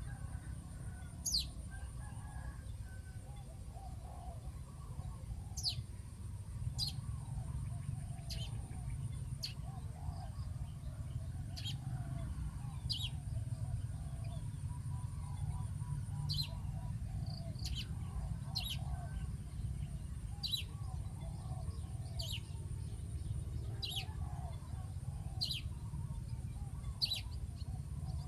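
Outdoor bird calls: short, sharp, high calls that sweep steeply downward, repeated about every one to two seconds, over lower chattering calls. A steady thin high buzz like insects and a constant low rumble run underneath.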